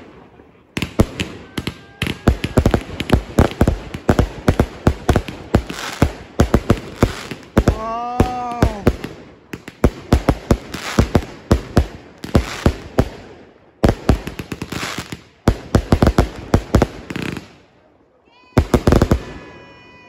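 Firework barrage: rapid volleys of sharp bangs and crackles, several a second, with a short lull near the end before a last volley. Two brief wavering pitched cries sound over the bangs, one about eight seconds in and one falling in pitch at the very end.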